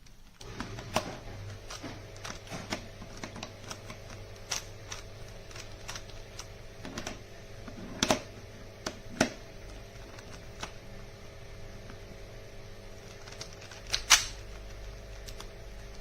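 Magnetic speed cube being turned by hand: irregular plastic clicks and clacks as the layers snap into place, with a louder clack near the end, over a steady low hum.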